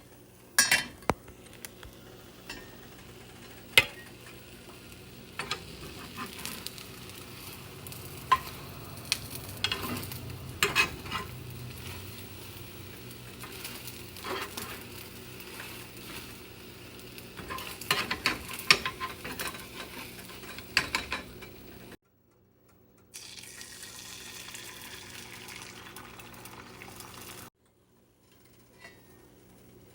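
Pancake-making kitchen sounds: a steady hiss with frequent sharp clicks and taps of a utensil against a bowl or pan. Twice near the end the sound drops out briefly to silence.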